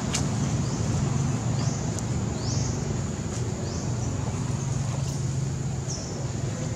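Outdoor ambience: a steady low rumble under a constant high-pitched hum, with short rising chirps repeating about once a second.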